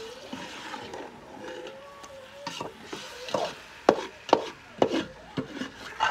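Scraping and rubbing, then a run of sharp knocks about half a second apart in the second half.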